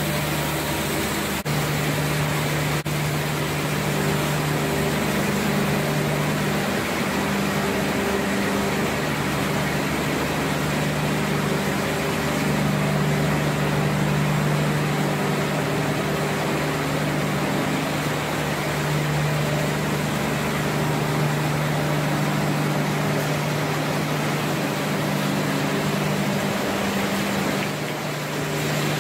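Automatic bottle-printing production line running: a steady mechanical hum over a low drone, with two sharp clicks in the first few seconds.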